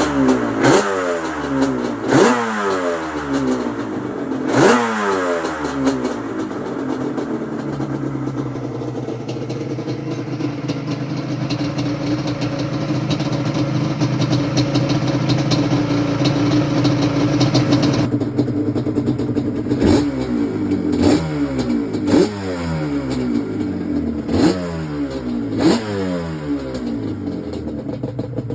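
Yamaha Banshee's two-stroke twin engine is revved in sharp throttle blips, each falling back down. Between them it runs steadily for about ten seconds in the middle.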